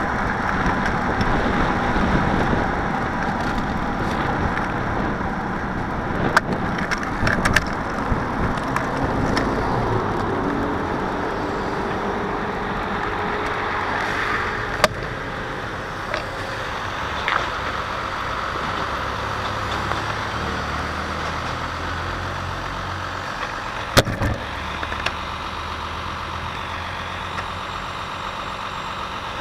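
Wind and road noise on a bicycle-mounted camera while riding, with a few sharp knocks from bumps. Midway a Hino truck's diesel engine passes close alongside; near the end the noise settles to engines idling in stopped traffic.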